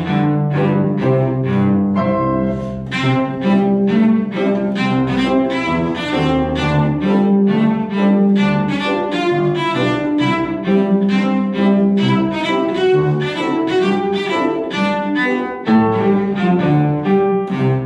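Cello and grand piano playing together: the cello bows a sustained melody in its low-middle range while the piano keeps up a steady stream of notes underneath.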